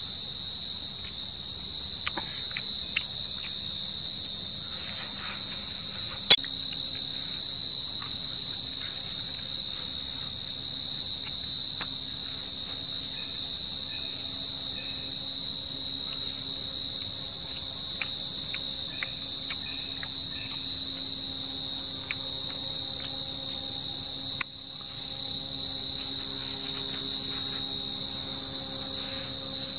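Steady, high-pitched chorus of forest insects, with scattered small clicks and one sharp click about six seconds in.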